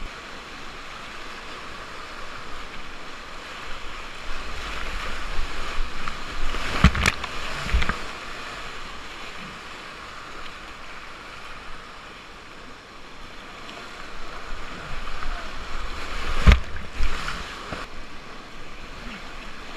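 Whitewater rapids rushing steadily around a kayak, heard close up. A few sharp knocks cut through: two about seven seconds in and one near the end.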